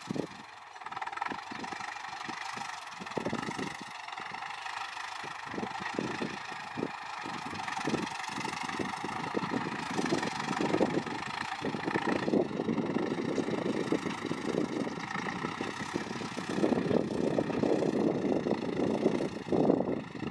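Ford 6610 tractor's four-cylinder diesel engine running steadily, getting louder in the second half.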